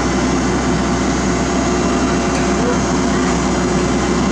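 Heavy diesel engines of asphalt paving machinery running steadily at a constant speed, a loud, even drone.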